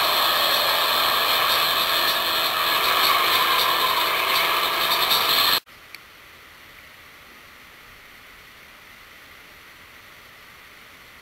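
A steady, loud mechanical clatter with hiss that cuts off abruptly about five and a half seconds in. After it there is only a faint steady hiss, with one small click just after the cut.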